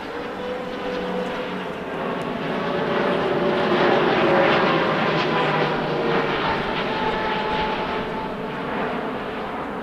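Boeing 777-9's twin GE9X turbofan engines on a flypast overhead: a jet roar that swells to its loudest about four seconds in and then fades, with a whine that drifts down in pitch as it passes.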